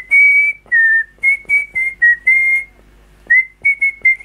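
A man whistling through pursed lips: a string of short notes hovering around one high pitch with small slides up and down, breaking off for a moment about halfway through before a few more notes.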